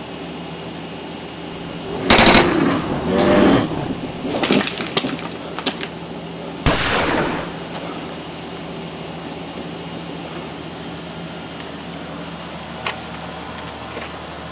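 Rapid bursts of gunfire about two seconds in and again a second later, a few scattered shots, then a single sharp bang with a short ringing tail at about six and a half seconds, over a steady background hum.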